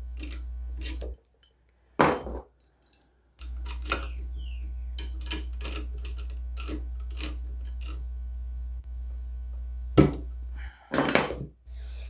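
Metal clicks and clinks as a 32 mm spade bit is fitted into a drill press chuck and the chuck is tightened by hand and with a chuck key, over a steady low hum that drops out briefly. There are louder knocks about two seconds in and near the end.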